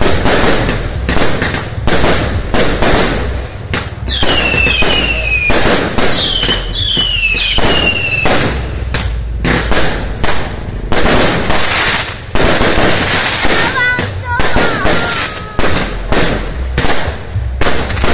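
Firecrackers and fireworks going off in a rapid, overlapping string of sharp bangs. Several falling whistles from whistling fireworks cut through about four to eight seconds in.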